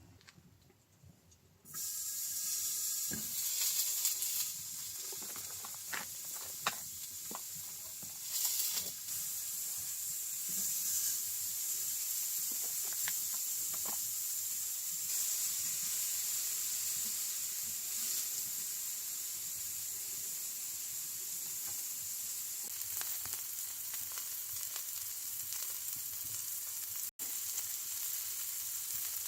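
Food frying in a hot pan: a steady sizzle that starts suddenly about two seconds in, with a few sharp clicks and taps in the first several seconds.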